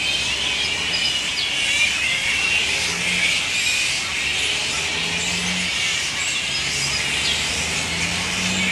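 A roosting colony of grey-headed flying foxes chattering and squabbling: a continuous, dense mass of high squeaks and screeches from many animals at once.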